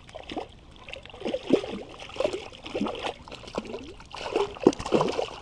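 Water sloshing and gurgling around wading legs as the feet shift in a shallow river, in irregular splashes over the steady rush of the current.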